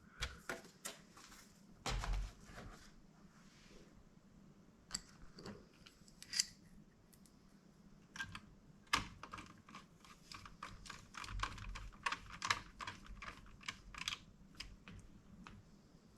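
Scattered light clicks and taps of small tools and plastic and metal parts as a laptop is taken apart by hand, coming more thickly near the middle and end.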